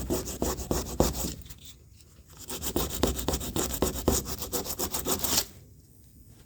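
Hand sanding a truck door panel in quick back-and-forth strokes. The strokes stop for about a second shortly after the start, resume, and stop again about a second before the end.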